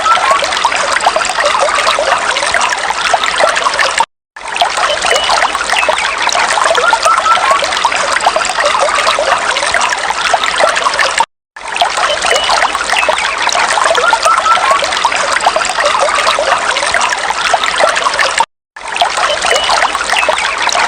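Small stream trickling steadily, with a few faint bird chirps. The sound cuts out to silence for a moment about every seven seconds, where the same short recording loops.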